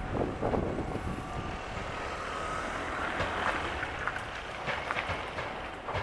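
Train approaching on the track: running noise building, with a faint steady whine and rising rail clicks.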